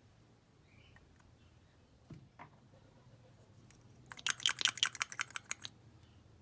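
Slime being squeezed and pressed by hand, a few soft clicks and then a quick run of sticky crackling pops for about a second and a half.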